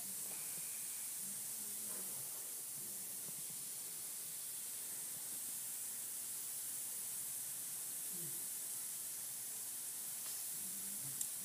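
Steady high hiss of background noise with no clear event, a few faint soft sounds underneath and a small click near the end.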